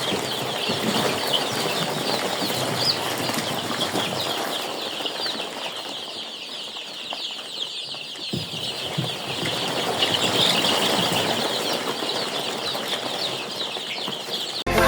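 A flock of young chickens peeping all together: a dense chorus of many short high calls over a steady rustle.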